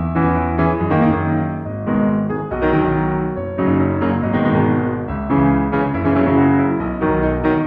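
Background music led by piano, with repeated struck notes over a steady low bass.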